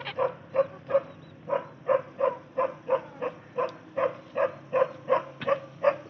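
A dog barking over and over in a steady rhythm, about three barks a second.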